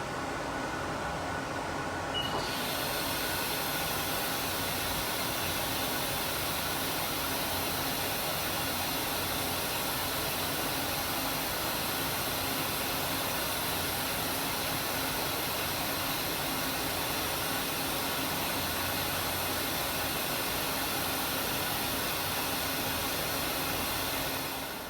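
Steady mechanical hiss of machine-shop equipment running, which swells and fills out about two seconds in and holds even until it drops away just before the end.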